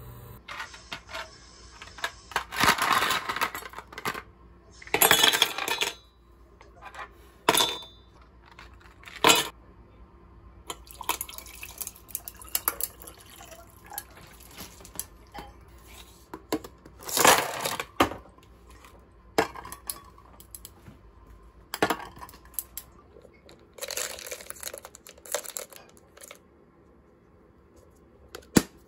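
Dishes and cutlery being handled: irregular clinks and clatters, with several longer noisy stretches of a second or two.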